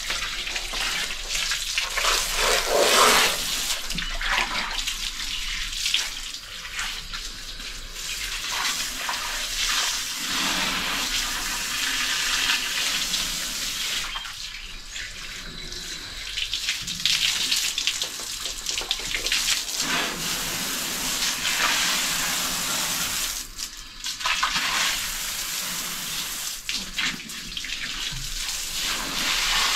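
Water from a garden hose splashing over a king cobra's body and onto a concrete floor as the snake is washed by hand, the spray swelling and dipping in loudness.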